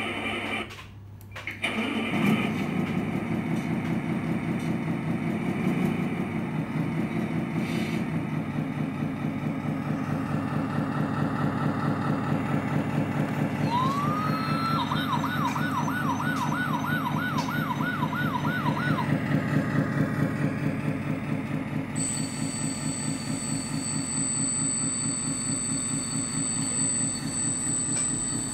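RC truck sound module playing a Scania V8 diesel sound, idling with a steady pulse. It cuts out about a second in and starts up again. In the middle a warbling siren-like tone sounds for about five seconds, and a steady high whine joins over the last few seconds.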